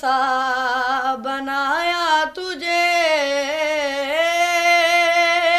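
A boy's solo voice singing a naat unaccompanied, with long held notes and small ornamental slides in pitch and a short break for breath about two seconds in.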